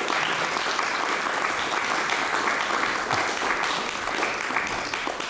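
Audience applauding at the end of a talk, steady clapping throughout that begins to thin out near the end.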